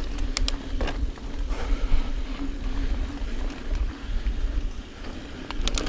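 Niner EMD 9 hardtail mountain bike ridden fast over dirt singletrack: wind rumbling on the camera mic, tyres rolling on dirt, and a steady hum under it. The bike rattles with sharp clicks over bumps, a few near the start and a quick cluster near the end.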